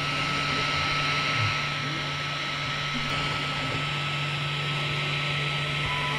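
XVICO X3S desktop 3D printer running, giving a steady whir from its fans over a constant low hum and a thin steady tone.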